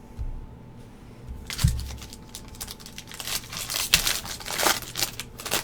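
A foil trading-card pack wrapper crinkling and tearing as the pack is opened, with a couple of soft thumps from handling at the start.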